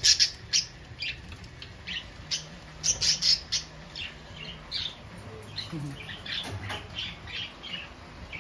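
Caged parrots squawking and chirping in many short, quick calls, loudest near the start and about three seconds in, over a low steady hum.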